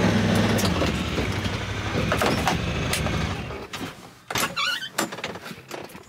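Side-by-side UTV engine running steadily, then fading out about three and a half seconds in, followed by a few sharp knocks and clicks.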